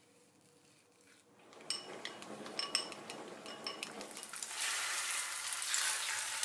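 Chopsticks clinking against a glass bowl while tofu pieces are stirred through beaten egg, a run of sharp ringing clicks. Then, about four and a half seconds in, a loud sizzle as the egg-coated tofu and beaten egg hit a hot frying pan.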